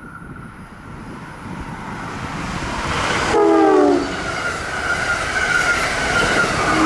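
Amtrak Keystone train approaching and passing at speed, its rail and wheel noise building steadily. A short horn blast comes about three seconds in, its pitch dropping as the train goes by.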